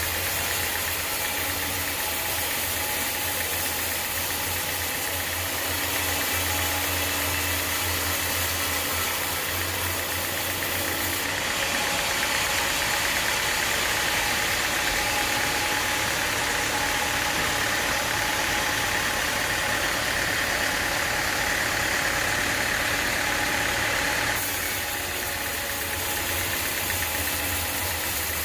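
Sawmill engine running steadily, joined for about the middle half by a louder, steady hissing rasp as the saw blade cuts through an acacia log, before it eases back to the engine alone.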